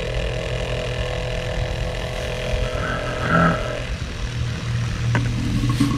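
Home-built CatFish water pump, an electric pump run from a portable battery power station, running with a steady hum.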